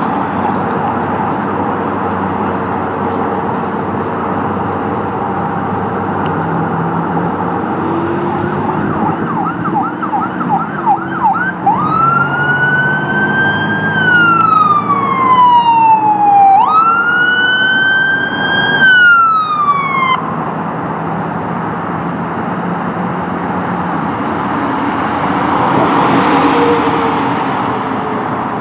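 Fire department response pickup's electronic siren over traffic noise. It starts in a fast yelp, then switches to two slow wail cycles, each rising quickly and sliding down. Road noise swells near the end as the truck passes.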